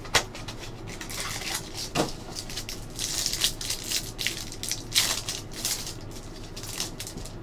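Crinkling and tearing of the clear plastic wrapper on a trading card pack as it is pulled open by hand. There are sharp crackles just after the start and again about five seconds in.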